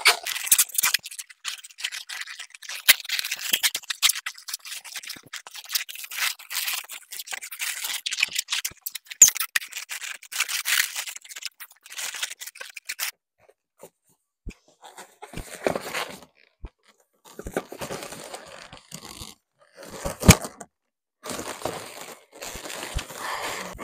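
Latex balloons being handled and twisted by hand, rubbing and crinkling against each other. A dense run of scraping and clicking for about thirteen seconds, then, after a short pause, several separate shorter bursts.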